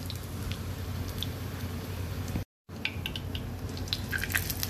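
Hot oil sizzling steadily as a folded flour-tortilla chimichanga shallow-fries in a pan. After a brief dropout about halfway, sharper crackles and light clicks come as a metal slotted spatula lifts and turns it.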